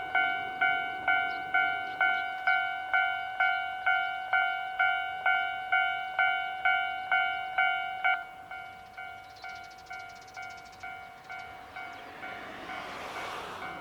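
Japanese level-crossing alarm ringing, a multi-tone electronic bell struck about twice a second, which drops in level about eight seconds in. Near the end the rumble of a train, a diesel railcar on this non-electrified line, rises as it comes up to the crossing.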